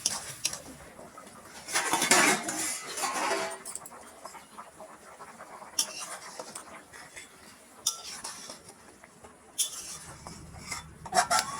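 Metal kitchen utensils and cookware clinking, knocking and scraping, with separate knocks spread through and a denser stretch of scraping about two seconds in.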